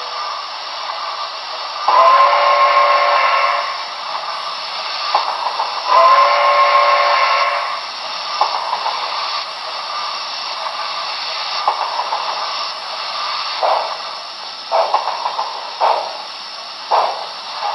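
Onboard sound of a Broadway Limited Paragon4 Santa Fe 4000-class 2-8-2 model steam locomotive: a steady hiss, then two whistle blasts, the two-blast signal for moving off. A little past halfway, exhaust chuffs begin as it starts at speed step 1.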